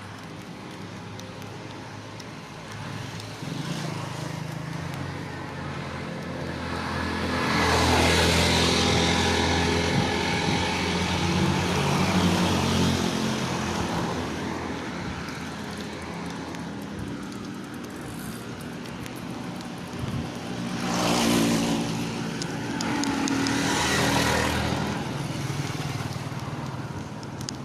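Street traffic: a motor vehicle's engine swells and passes about eight seconds in and fades over several seconds, then two more vehicles go by in quick succession near the end.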